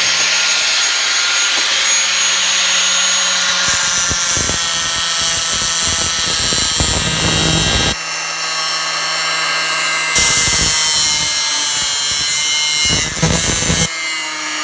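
Corded angle grinder running at speed, its disc cutting through M12 steel threaded rod: a steady high whine over a grinding rasp as the disc bites into the metal. The sound changes abruptly a few times.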